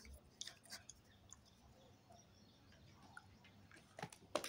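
Near silence: room tone with a few faint clicks, a little louder about four seconds in.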